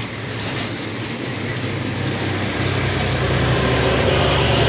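Engine noise with a steady low hum, growing louder over the last couple of seconds.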